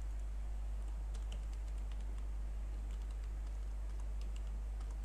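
Computer keyboard typing: scattered light key clicks starting about a second in, over a steady low electrical hum.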